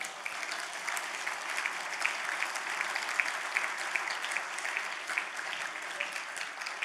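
Audience applauding: many hands clapping together, dying away toward the end.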